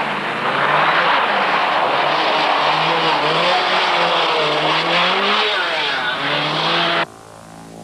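1985 Group B rally car at full throttle on a special stage, its engine note rising and falling repeatedly as it changes gear, over loud road and tyre noise. It cuts off abruptly about seven seconds in, and faint music follows.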